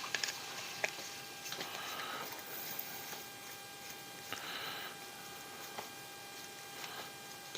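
Faint, scattered clicks and taps of small plastic and metal parts being handled as an RC crawler's battery box is removed, over a steady electrical hum.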